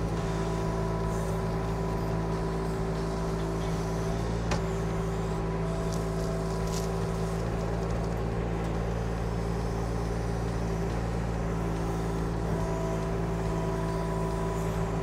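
Kymron XH26 mini excavator's Kubota diesel engine running steadily under load as the machine digs a cut, with a single sharp knock about four and a half seconds in.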